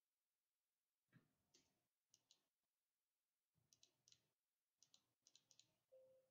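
Faint computer keyboard typing: a few quick keystrokes in short clusters, with soft knocks under them.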